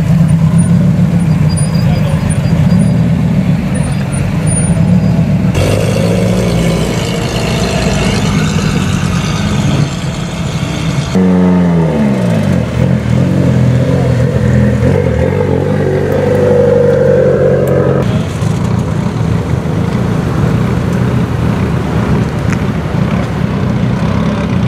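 Performance car engines and exhausts driving slowly past one after another, in several short cuts: first a Dodge Viper's V10 with a deep, steady rumble, later Mitsubishi Lancer Evolution X engines. Just after eleven seconds in, an engine's pitch falls steeply as it comes off a rev.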